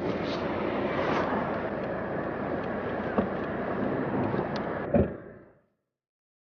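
Steady street and traffic noise, with a small click about three seconds in and a sharp thump near five seconds, after which the sound fades out abruptly.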